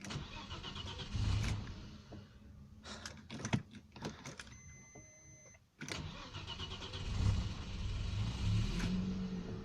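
Audi A6 C4 engine being cranked by the starter twice: the first try, about five seconds long, does not catch. After a short pause with a faint high whine, the second crank about six seconds in catches and the engine runs. This is hard starting that the owner puts down to a new fuel pump which failed after two days.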